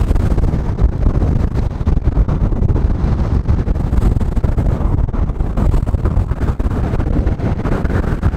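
Gale-force wind of around 45 knots buffeting the microphone on a sailing yacht beating hard to windward, a loud, rough rumble, mixed with the rush of water and spray off the bow.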